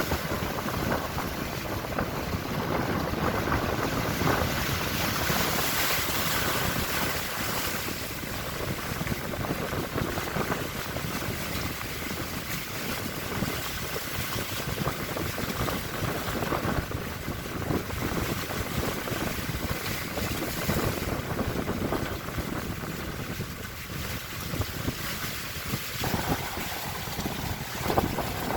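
Strong wind buffeting the microphone, with waves at sea beneath it, gusting unevenly throughout.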